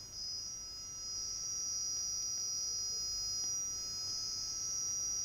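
An acoustic OFDM data signal from a loudspeaker: a high hiss in a narrow band around 5–7 kHz, heard as a short burst and then longer blocks of data. Under it run two steady, pure high tones, the deliberate interference at 5,700 and 6,450 Hz.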